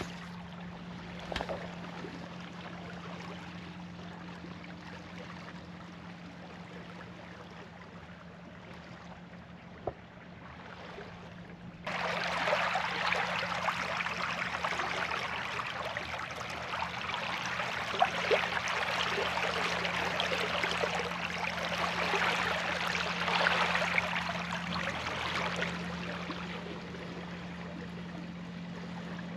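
Water rushing and splashing along a sailboat's hull as it sails, cutting in suddenly about twelve seconds in and easing off near the end. Before that, a quieter steady wash of water with a low hum.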